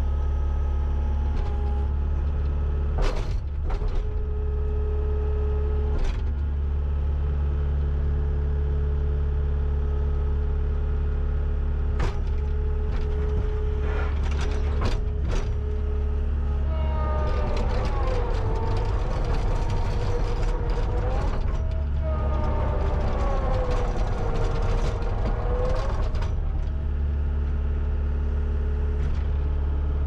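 A 2017 Takeuchi TL8 compact track loader's 74-hp diesel engine running steadily while the machine works, with sharp clanks now and then. From a little past the middle until near the end, a wavering high whine rides over the engine.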